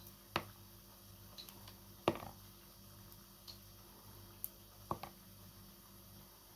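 A few light, sharp clicks and taps, the loudest about two seconds in and two close together near the five-second mark, over a faint steady hum.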